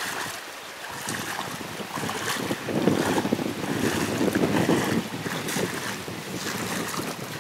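Shallow pond water sloshing and splashing in uneven surges as two people wade quickly through it, with wind noise on the microphone.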